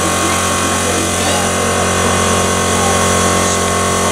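LNER 458 miniature steam locomotive steaming in the sidings: a loud, steady rush of escaping steam with a steady hum underneath.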